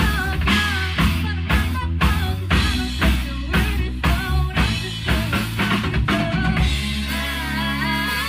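A rock band playing live: a girl singing lead over electric bass, electric guitar and a Tama drum kit keeping a steady beat of about two strikes a second. Near the end the drumming thins out under a held sung line.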